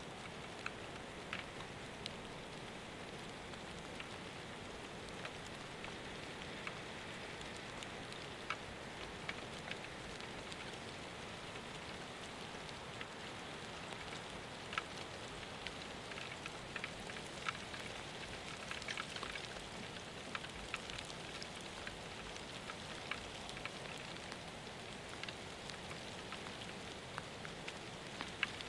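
Light rain: a steady hiss with scattered sharp drop ticks, thicker for a few seconds past the middle.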